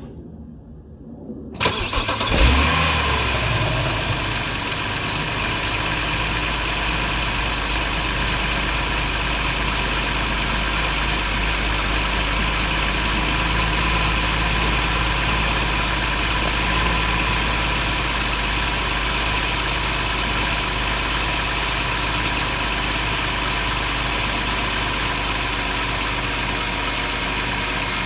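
BMW 530i engine cranked and catching about two seconds in, then settling to a steady idle. Steady high-pitched tones run over the idle: the squeaking noise the owner is recording.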